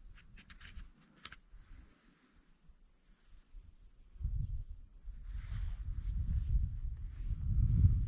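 Field insects chirring steadily in a high, even band. A few faint clicks come in the first second. From about halfway a low rumble of wind on the microphone grows louder and becomes the loudest sound.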